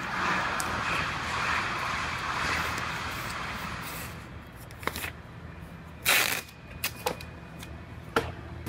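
A hand scuffing the bare metal of the door jamb with an abrasive pad in a steady rubbing hiss, then masking tape pulled off the roll and torn in a few sharp rips, the loudest about two-thirds of the way through.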